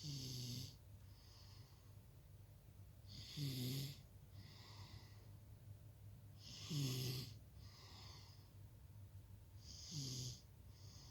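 Small child snoring in sleep: four snores at an even pace, about every three and a half seconds, each sliding down a little in pitch, with a softer breath between them.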